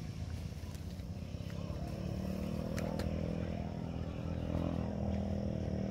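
An engine running steadily and getting louder from about two seconds in, over a low rumbling background, with a faint steady high-pitched drone above it.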